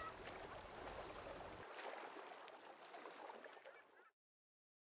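Harbour water ambience: water lapping and gurgling with a few faint knocks, fading out about four seconds in.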